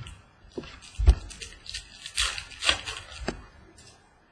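Baseball trading cards and packs being handled: a few sharp taps of cards on a table, with crisp rustling from about two to three seconds in.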